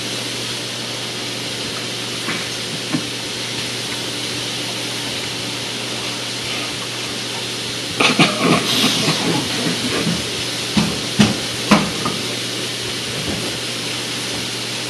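A steady hiss with a low hum underneath throughout. From about eight to twelve seconds in, a cluster of brief murmurs and a few sharp clicks.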